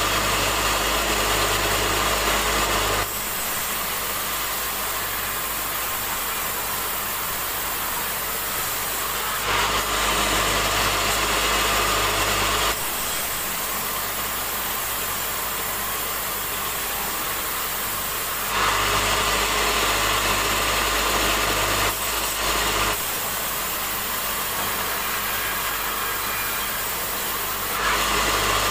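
Sawmill band saw running and cutting timber as a squared cant is fed through the vertical blade: steady machine noise that switches abruptly several times between louder stretches with a deep hum and lighter, quieter stretches.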